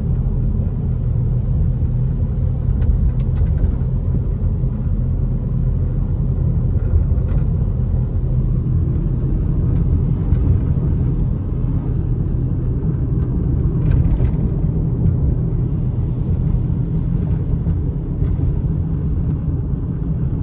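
Steady low rumble of a car driving on a wet road, engine and tyres heard from inside the cabin.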